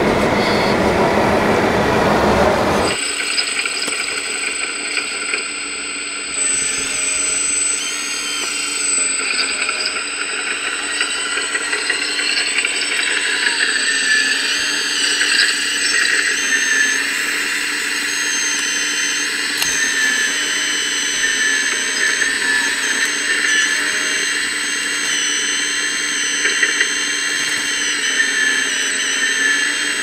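Small electric motors and gearboxes of RC model excavators whining at several pitches at once, the whine wavering and shifting in pitch as the machines work. This follows about three seconds of broad rumbling from the scale-truck scene, which cuts off abruptly.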